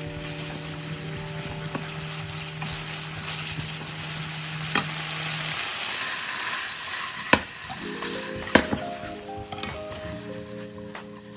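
Food sizzling in a frying pan as it is stirred, the sizzle swelling in the middle, with a few sharp clicks of a utensil against the pan.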